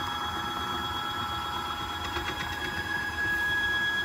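Stepper motor driving a single-start leadscrew, running a DIY wooden CNC's X-axis carriage along its steel rails with a steady whine made of several fixed tones. This is a commanded 10 cm test move to check the newly set steps-per-millimetre (travel resolution) value.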